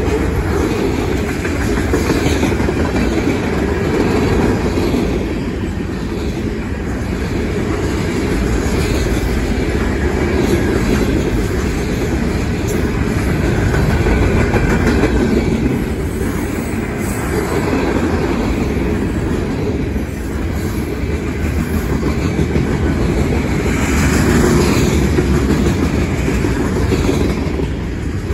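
Freight train cars rolling past close by: a continuous loud rumble, with the wheels clacking over the rail joints.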